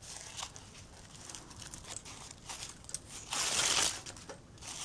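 A fabric strip rustling as it is wrapped around a plastic ring by hand, with faint scattered clicks and a louder swish about three and a half seconds in as the strip is pulled through.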